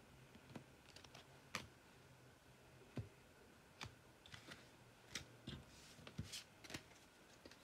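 Faint, irregular clicks of stiff Topps Turbo Attax trading cards being handled and flipped over, about two clicks a second, some a little louder than others.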